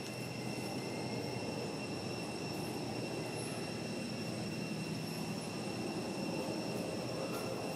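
Steady outdoor background noise: an even low rumble with a faint, constant high-pitched tone above it and no distinct calls or knocks.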